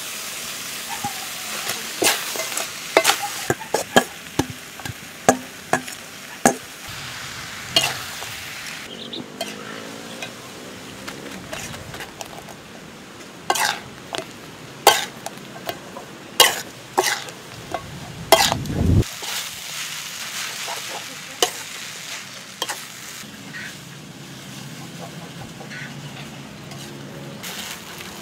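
Glass noodles and river prawns being stir-fried in an aluminium wok: a steady sizzle, with sharp clicks and clanks of a metal utensil against the pan in two busy spells. About two-thirds in, a brief low rumble rises and then cuts off suddenly.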